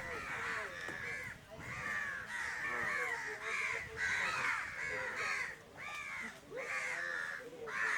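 Several crows cawing over and over, their harsh calls overlapping.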